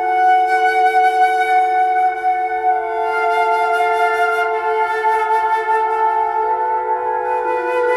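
Slow, eerie yet calming background music of long held notes, several sounding together, moving to new notes every few seconds.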